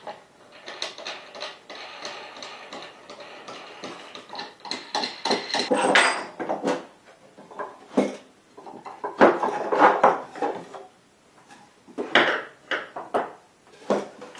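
Hands working on a homemade plywood lathe carriage: wood and metal hose clamps knocking, clinking and scraping, in several spells of clatter with short pauses between.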